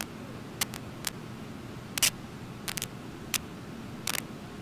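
Steady rush of the waterfall and white-water rapids, with about eight sharp clicks at irregular intervals over it, the loudest about two seconds in.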